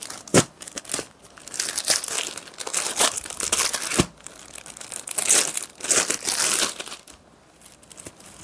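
Clear plastic saree packet crinkling as it is handled and opened, in repeated rustling bursts with a couple of sharp clicks. The rustling stops about seven seconds in.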